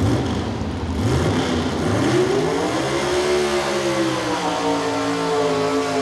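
Super Stock four-wheel-drive pulling truck's engine revving up hard over about two seconds, then held at full throttle with its pitch wavering slightly while the truck pulls the sled.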